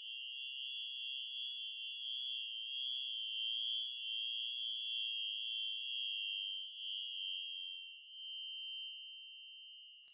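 Csound-synthesized electronic music: a steady cluster of high, pure sine-like tones with a slow shimmer, fading somewhat near the end.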